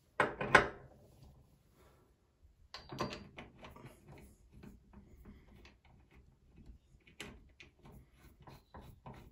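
Clicks and knocks of a cross-head tap handle being fitted back onto its spindle and its small retaining screw turned in by hand. There is a louder clatter just after the start and another about three seconds in, then light scattered ticks.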